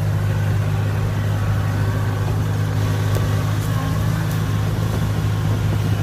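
Kubota DC70 combine harvester's diesel engine running steadily as the machine crawls forward on its tracks, with a few faint clicks near the middle.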